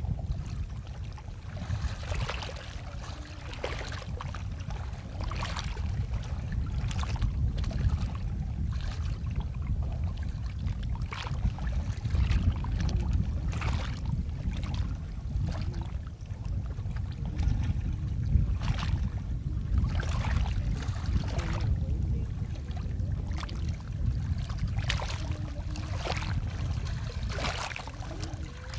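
Water splashing and lapping around a small wooden canoe among bamboo net stakes, with irregular splashes every second or two as a net is pulled from the water. Wind rumbles steadily on the microphone underneath.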